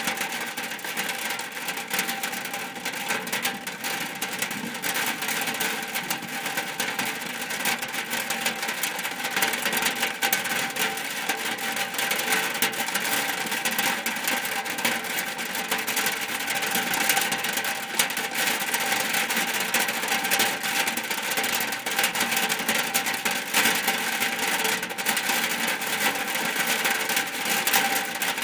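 Rain falling on a shack roof: a steady, dense patter of drops, with a few faint steady tones beneath.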